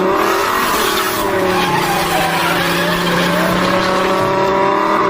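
Racing car sound effect: an engine running hard at high revs, its pitch wavering up and down over a hiss of noise.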